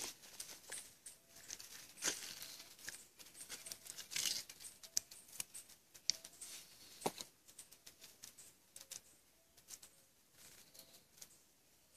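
Irregular rustling and crinkling of paper and dry leaves with scattered sharp clicks, as chopped herbs are picked up from a paper sheet and dropped into a pan. The loudest rustles come about two and four seconds in, and a sharp click about seven seconds in; it grows sparser after that.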